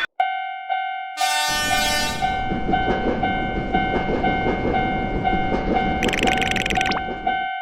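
Japanese railroad crossing alarm ringing in a steady beat of about two strokes a second while a train passes with a rumbling clatter. A train horn sounds about a second in, and a second high burst comes near the end.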